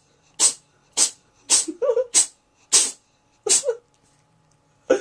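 Domestic cat sneezing over and over: short sharp sneezes about two a second, a pause about four seconds in, then one more sneeze at the end.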